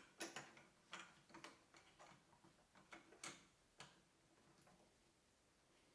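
Faint, irregular clicks and taps as a 3D-printed adapter and the depth stop are fitted onto a drill press quill: about a dozen in the first four seconds, the loudest a little past three seconds in, then near silence.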